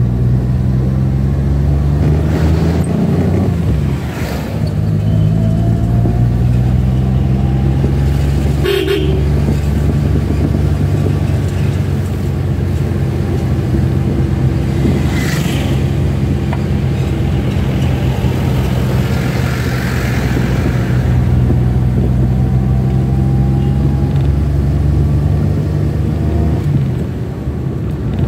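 Vehicle engine running steadily, heard from inside the moving vehicle, its note shifting briefly twice, with short horn toots.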